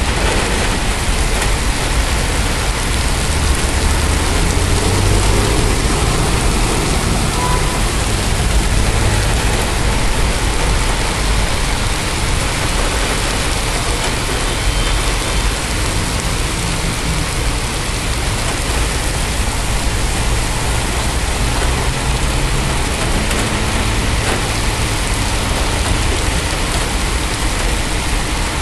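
Heavy thunderstorm rain pouring steadily, with a low rumble underneath that swells and fades.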